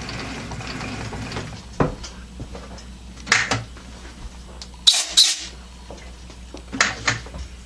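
Metal tools and the workpiece being handled at a lathe after tapping a hole: a few short sharp metallic clicks and knocks, the loudest about five seconds in, following a low steady hum at the start.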